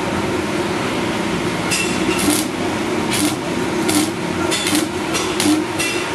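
Stick arc welding on steel square tubing: the electrode arc hissing steadily, broken by louder sharp crackles every half second or so, over a steady low hum.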